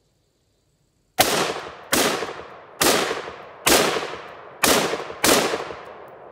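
ATI Mil-Sport AR-15 pistol fired as single semi-automatic shots: six sharp gunshots a little under a second apart, starting about a second in, each followed by a long fading echo.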